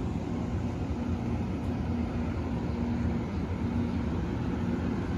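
Steady low rumble of city street ambience with a faint hum, with no single sound standing out.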